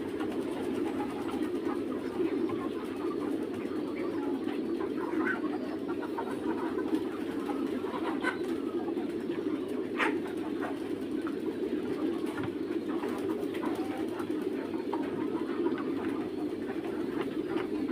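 A flock of young Mía chickens giving a steady, low, cooing murmur, with scattered short chirps over it and a single click about ten seconds in.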